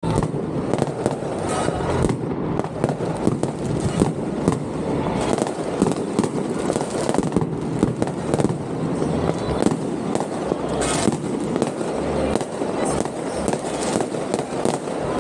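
Strings of firecrackers going off in a dense, continuous rattle of rapid bangs.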